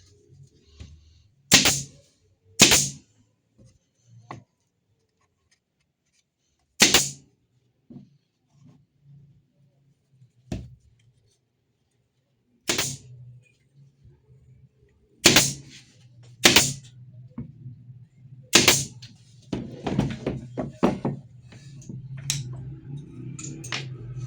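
Workshop work on wood: a series of sharp knocks and taps, about seven loud ones at irregular gaps, then a low steady hum with a quick run of smaller clicks near the end.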